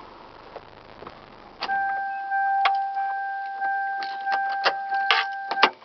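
A 1995 Toyota Corolla DX's engine is switched off at the key, and about a second and a half later the car's warning chime starts: a single steady tone that pulses about once a second, with small clicks of the key and switches, stopping shortly before the end.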